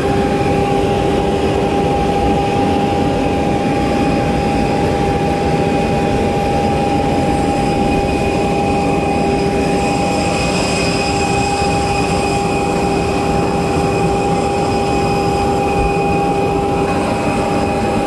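Parked Airbus A320's auxiliary power unit running, a loud steady whine with two held tones over a constant hum.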